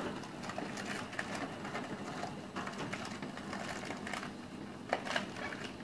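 Small clicks and crinkling of a snack packet and the vending machine's delivery-bin flap being handled as the dispensed item is taken out, with a couple of sharper ticks near the end, over a steady low hum.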